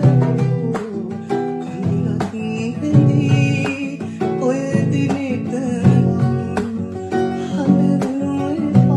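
A Sinhala song: acoustic guitar accompaniment with a singer's voice carrying the melody.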